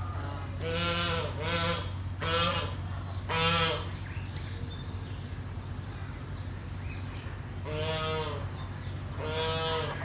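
Domestic geese calling: six short, quavering honks, four in quick succession in the first few seconds and two more near the end.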